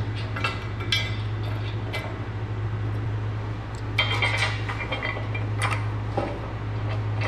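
Steel nuts, lock washers and bolts clinking as nuts are spun on by hand over lock washers onto the bolts through a steel shop-press frame: scattered light metallic clicks and taps, over a steady low hum.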